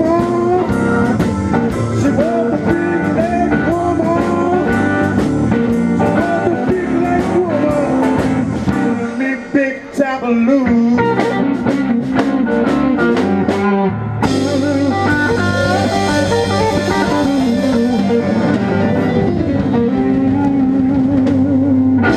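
Live blues band playing: electric guitar over bass guitar and drum kit, the cymbals getting busier about two-thirds of the way through. The song stops abruptly on its last hit at the very end.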